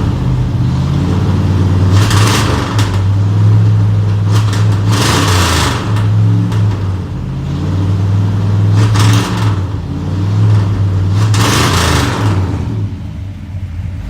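Truck's 390 V8 idling on a Holley 650 vacuum-secondary four-barrel carburettor, its throttle stabbed open four times for short revs. The carb gives the engine a bad hesitation that rebuilds, jetting and timing changes have not cured.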